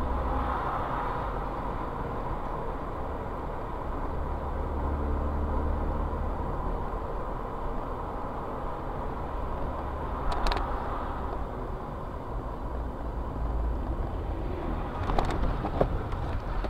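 Engine and road noise of a moving car, picked up from inside the cabin by a dashcam: a steady low rumble with hiss and a faint steady tone. A sharp click comes about ten seconds in, and several clicks and knocks come near the end.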